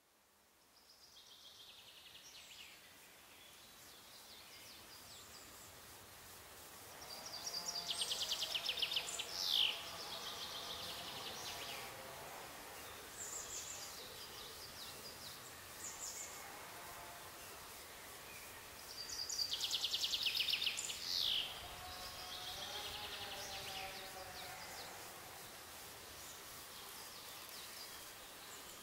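Forest songbirds singing over a faint steady background hiss: two louder, fast trilled songs, each ending in a quick falling note, come about seven and nineteen seconds in, with shorter high chirps between and lower warbling notes under them.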